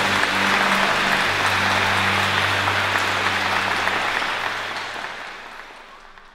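Crowd of wedding guests applauding steadily, with low sustained music notes beneath; both fade out over the last two seconds.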